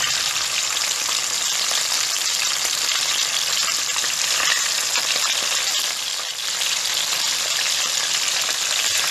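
Whole galunggong (round scad) frying in a pan of hot oil that has been salted to keep it from spattering: a steady, dense sizzle that dips briefly about six seconds in.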